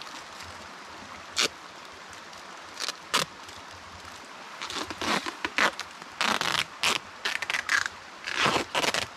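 Duct tape being pulled off the roll in rasping strips while a plastic garbage bag crinkles, as a bag corner is taped around a tree trunk. A few short rips come early, then a run of longer pulls fills the second half.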